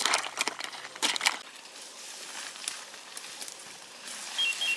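Crunching and rustling of dry field cover underfoot, sharpest in the first second or so, then a softer steady rustle.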